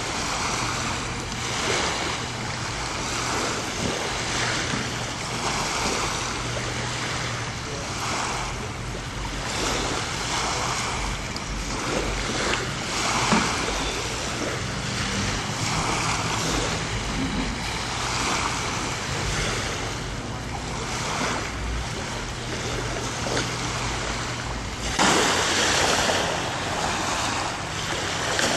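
Small Lake Erie waves lapping and washing onto a sandy, rocky shoreline, swelling every second or two and louder near the end, with wind on the microphone and a faint steady low hum underneath.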